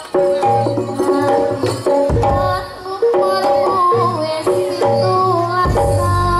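Live Javanese jaranan music: hand drums beating under a line of held, pitched metallophone or gong-chime notes. A deep low stroke comes in about two seconds in and again near the end.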